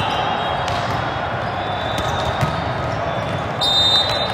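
Busy multi-court volleyball hall: a steady hubbub of distant voices with scattered thuds of balls being hit and bouncing on nearby courts, and a high squeak near the end.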